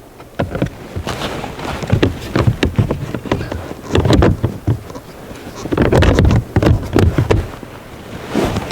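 Plastic trim cover being fitted over the gear shifter in a Nissan Altima's center console: an irregular run of plastic clicks, taps and knocks as it is worked and pressed into place.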